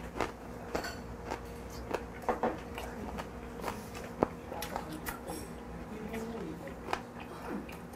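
A man chewing a mouthful of fermented skate samhap (skate with boiled pork, garlic scapes and salted hairtail innards), with many short crunches and clicks, over a faint steady hum.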